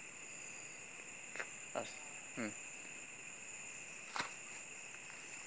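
Night insect chorus, crickets trilling steadily at a high pitch. Two brief falling voice sounds come about two seconds in, and a sharp click near four seconds.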